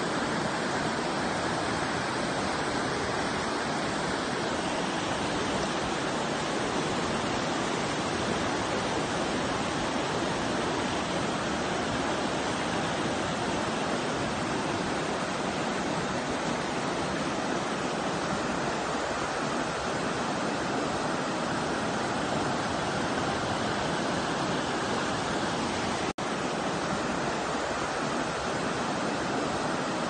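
River rapids and small falls rushing steadily over rock ledges, an even roar of white water broken once by a momentary gap near the end.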